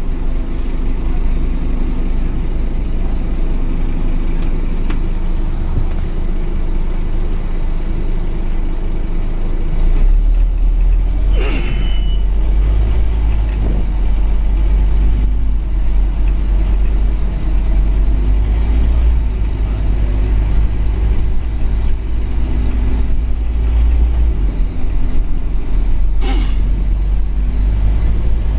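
Scania OmniCity N230UD double-decker bus heard from the upper deck. Its five-cylinder diesel engine runs with a steady low drone that grows louder about ten seconds in. Two short hisses of compressed air come from the bus's air system, one about a third of the way in and one near the end.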